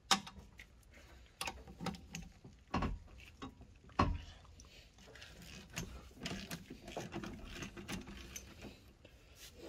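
Clinks and knocks of a tuner-nut key and wrench being fitted to and worked on a car's wheel nuts: four sharper knocks in the first four seconds, then lighter, irregular ticking.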